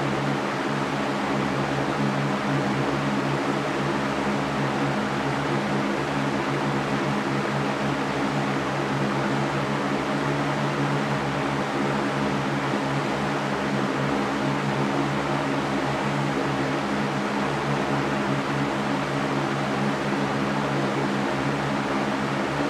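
Electric fan running steadily: an even whooshing of moving air with a low motor hum underneath.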